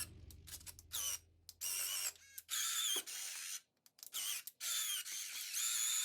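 Small electric motors of a miniature RC skid loader whining high in short stop-start bursts, about six in a row, each lasting up to a second.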